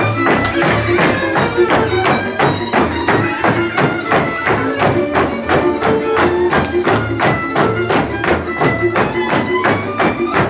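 Lively Hungarian folk dance music with a quick, steady beat.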